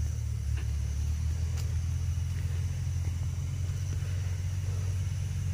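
Tractor diesel engine idling steadily, a low even rumble.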